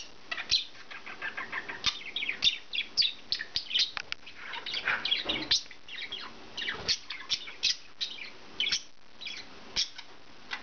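Budgerigars chirping and chattering: a busy, irregular run of short, high chirps with scattered clicks.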